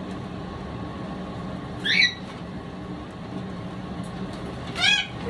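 Parrot squawking: two short, loud calls about three seconds apart, over a steady low hum.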